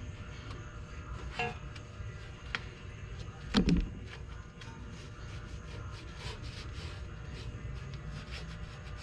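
Light clicks and knocks of metal brake hardware being handled during a brake pad job, with one louder thump about three and a half seconds in.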